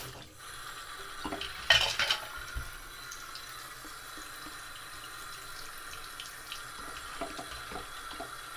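Kitchen tap running steadily into the sink as eggplants are rinsed under it, with a sharp knock about two seconds in and a few light clicks of handling later.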